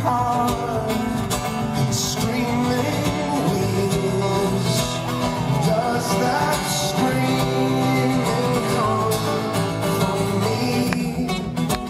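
Two steel-string acoustic guitars playing a song together live.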